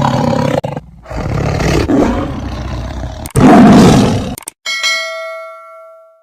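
A large wild animal roaring in three loud bursts, then a single bell-like chime that rings out and slowly fades.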